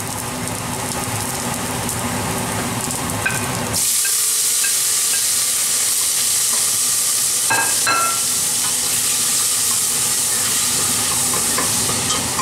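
Onion and garlic sizzling gently in hot olive oil in a stainless steel pot; about four seconds in, seafood marinara mix (prawns, calamari) goes in and a much louder, steady sizzle takes over as it fries and steams. A wooden spoon stirs through it.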